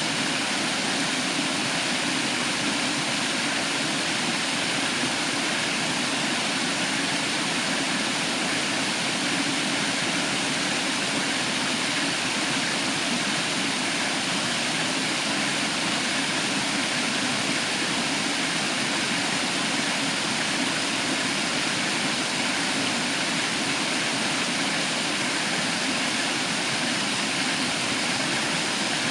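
Waterfall pouring into the stream below, a steady, unbroken rush of falling water.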